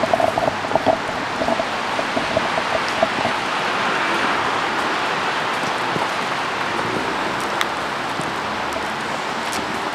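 Steady rain, an even hiss of falling water. Close drops patter quickly in the first second or so.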